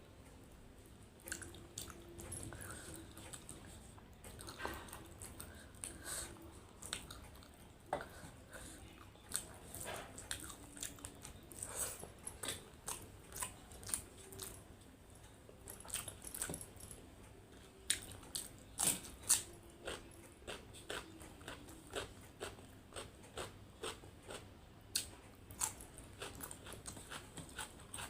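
A person chewing and biting food close to the microphone: irregular crunches and clicks of a mukbang meal of achari chicken, rice and salad.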